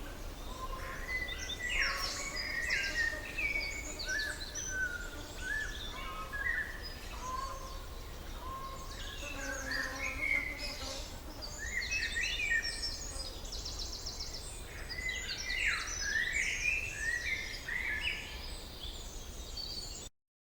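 A chorus of several forest birds singing and calling together: many short chirps, whistles and trills overlapping, over a faint low rumble. It cuts off suddenly near the end.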